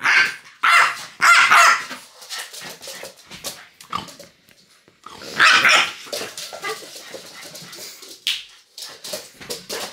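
French bulldog barking in bursts: a quick run of loud barks in the first two seconds, another loud bark about halfway, and a short sharp one near the end, with quieter scattered sounds between.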